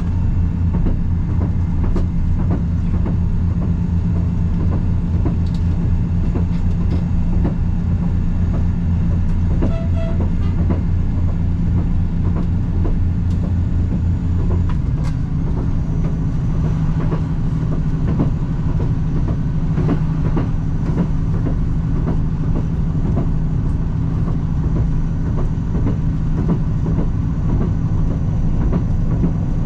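Metre-gauge diesel railcar under way, heard from the cab: a steady engine drone with scattered clicks from the wheels over the rails. About halfway through, the engine note changes as its deepest hum drops away and a higher drone carries on.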